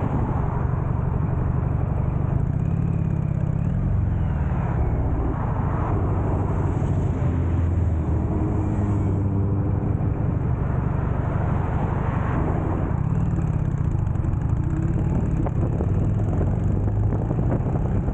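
Motorcycle engine running, its note rising and falling several times, with road traffic passing.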